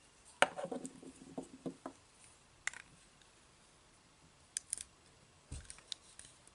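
Handling clicks and taps from the parts of a toy sonic screwdriver as its detached bottom section is fitted to hold the pen nib. A run of small clicks comes in the first two seconds, then single sharp clicks, three quick ones a little after halfway, and a duller knock near the end.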